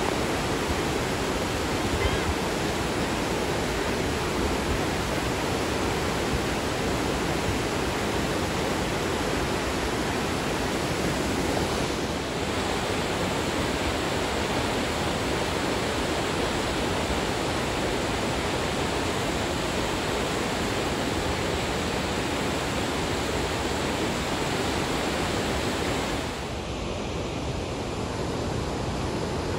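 River white water rushing: a steady, even wash of water noise, a little quieter for the last few seconds.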